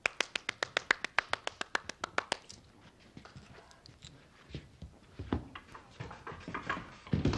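A woman clapping her hands quickly and evenly, about ten claps a second for roughly two and a half seconds, as a summons. Then scattered light knocks and two heavier thumps, one about five seconds in and one near the end.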